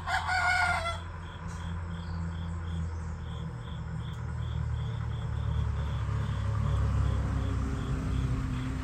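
A rooster crows once, briefly, right at the start, over an insect chirping steadily about three times a second. A low rumble underneath swells in the second half.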